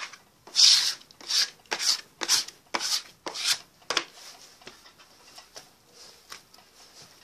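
Hand rubbing and smearing crumbly bizcocho dough mixed with cocoa and vegetable shortening against a wooden table, in quick scraping strokes about two a second. The strokes grow softer after about four seconds.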